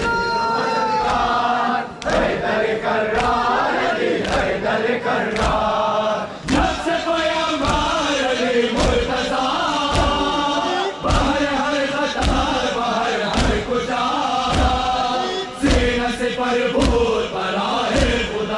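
A crowd of men chanting a noha together, a mourning lament, with heavy thuds about once a second in time with the chant: hands beating on chests in matam.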